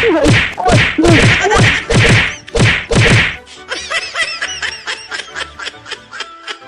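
A rapid series of about ten hard slaps, roughly three a second, as a man is beaten by hand. The slaps stop about three and a half seconds in, and light background music carries on.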